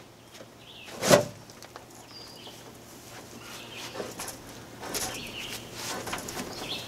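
A single sharp knock about a second in. After it, faint scraping and shuffling as the hinged, aluminium-framed solar panel array on the side of a bus is gripped by its bottom edge and pulled outward. Faint bird chirps sound now and then.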